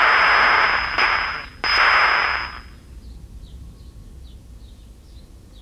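Kensington AM transistor radio's speaker hissing with static and a thin high whistle, cutting out and back in abruptly as a probe presses on a cracked trace on its circuit board, then dropping to faint by about three seconds in: the sign of an intermittent connection at the cracked trace.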